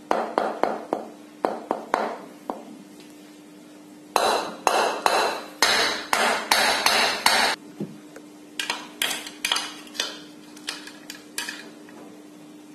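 Wooden mallet striking the metal end cover of a ceiling fan motor in three quick bursts of sharp blows, knocking the heated bearing out of its housing.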